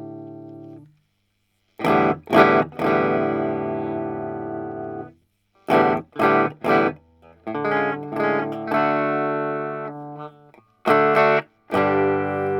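Electric guitar played through a Bugera V5 tube combo amp in 1-watt mode, gain set to 6, with a mildly driven tone. A chord rings out and dies, then come short chord stabs and longer ringing chords, separated by brief silent gaps.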